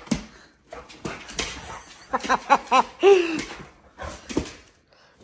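Pit bull nosing and rustling into a comforter, with a quick run of short whimpers about two seconds in, then a longer whine that falls in pitch.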